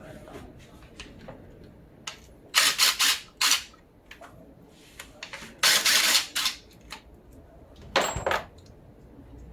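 Metal hand tools working on a car engine during disassembly: three loud bursts of rapid clicking and rattling, a few seconds apart.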